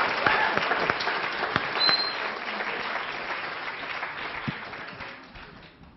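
A large audience of students applauding, many hands clapping at once; the applause dies away over the last few seconds.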